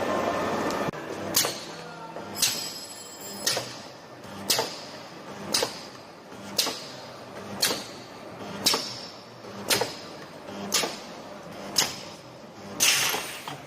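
Automatic wire welding machine cycling, a sharp mechanical clack about once a second, a dozen times in a row, over a steady background hum.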